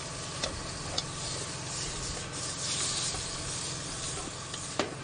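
Slices of meat sizzling in a frying pan over a camp stove burner, the sizzle swelling a little in the middle. A few sharp clicks of a spatula against the pan, the loudest near the end.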